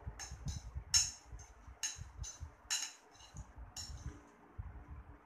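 Spoon clinking against a bowl as soup is scooped: a string of about nine light clinks, roughly two a second, that stop about a second before the end.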